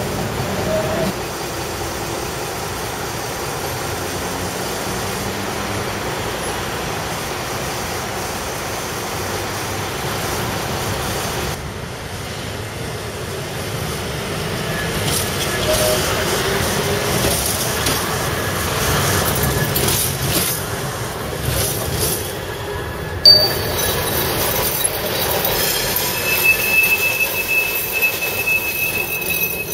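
Budapest trams passing on the street: a steady rumble of wheels on the rails. A single sharp knock comes about two-thirds of the way through, and thin high wheel squeals follow near the end.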